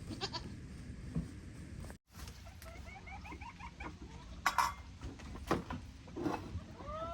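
Goats bleating, with a run of short, quick calls in between. The sound drops out for an instant about two seconds in.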